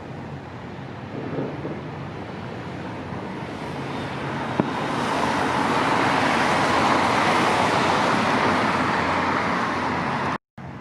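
Road traffic with a vehicle passing close by: its tyre and engine noise rises to a peak about halfway through and fades again, with one sharp click as it builds.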